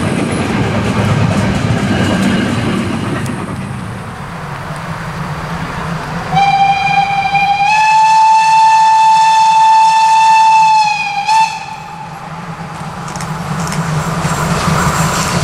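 Passing railway coaches rolling away, their wheel-on-rail noise fading. Then a steam locomotive's whistle sounds one long blast of about five seconds, stepping up slightly in pitch partway through, followed by a short toot. After that the approaching train's running noise grows.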